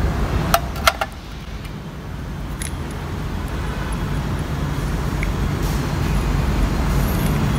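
Steady low background rumble that grows slightly louder, with a few sharp light clicks about half a second to a second in from small metal diesel-injector parts being handled.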